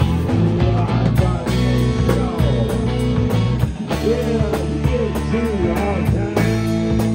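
Live rock band playing: electric guitars, bass guitar and drums, with a melodic line bending in pitch through the second half.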